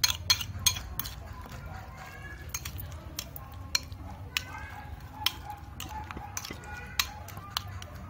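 Metal spoon clinking and scraping against a ceramic bowl while mashing and stirring a thick sauce. It gives a string of sharp clinks, with the loudest ones in the first second.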